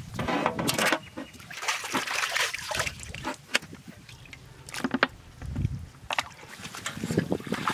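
Water sloshing, splashing and dripping as dressed quail are rinsed by hand in a metal pot of water and lifted out. A few light knocks come in between.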